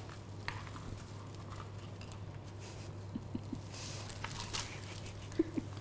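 Kittens scuffling and pawing at a wand toy on soft blankets: light rustles, pats and small clicks over a steady low hum, with a brief squeak near the end.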